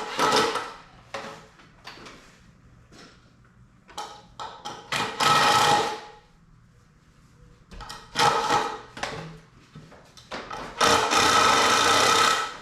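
Power drill running in repeated short bursts, the longest near the end, driving screws into a wooden 2x6 board.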